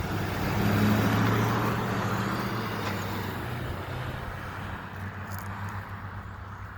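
A road vehicle driving past, its engine hum and tyre noise swelling about a second in and then fading away.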